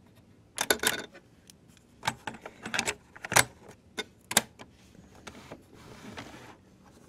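Hard plastic clicks and clatter from handling a Panasonic RQ-309S portable cassette recorder: its cassette door opening, a cassette going in and the door snapping shut. The sharp clicks come in a run over the first four and a half seconds, followed by fainter handling noise.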